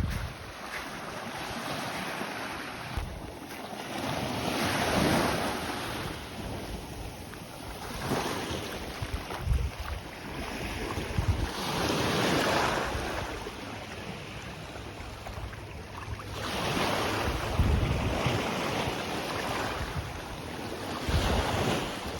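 Waves washing in on the beach in repeated surges every three to five seconds, with wind buffeting the microphone in low rumbles.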